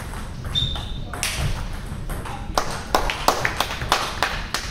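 Table tennis ball clicking off bats, table and floor: a quick run of sharp taps, about five a second, in the second half.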